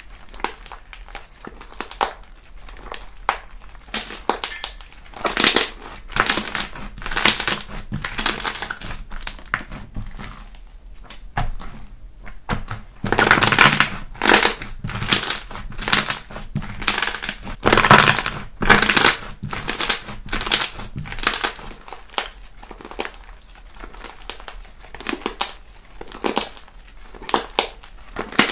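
Slime being squeezed and poked by hand, giving an irregular run of crackling, popping squishes, louder for a stretch about halfway through.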